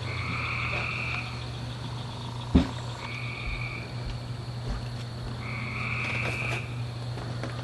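An animal trilling in calls about a second long, repeated every two to three seconds over a steady high insect-like whine, with one short knock about two and a half seconds in.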